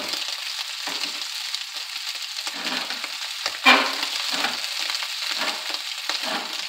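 Sliced Italian sausage sizzling steadily in a hot steel wok over a gas burner, a wooden spoon stirring and scraping the pieces around the pan. About three and a half seconds in comes one sharp clack of the spoon against the pan, ringing briefly.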